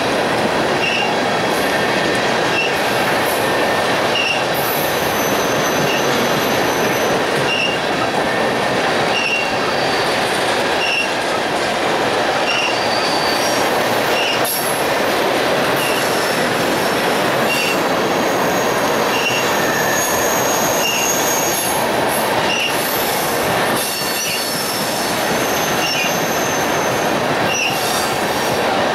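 A long train of empty ethanol tank cars rolling past steadily on a curve: a continuous rolling rumble with thin, high wheel squeal that comes and goes, and scattered clacks of wheels over the rails. A short high chirp repeats about every second and a half.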